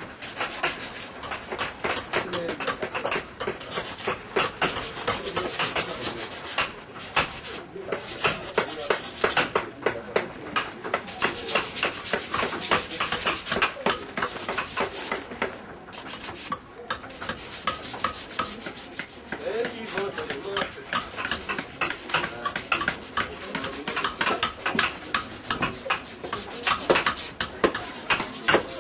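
Wood being rasped by hand, a coarse rasp scraping over a carving in rapid repeated strokes.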